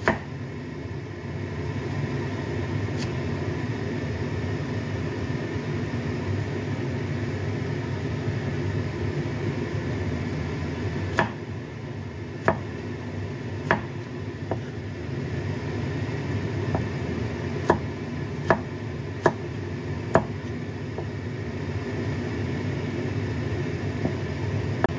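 Steel cleaver knocking on a wooden chopping board as a carrot is sliced into strips: about ten separate, irregular knocks, most bunched in the middle. Under them runs a steady low hum.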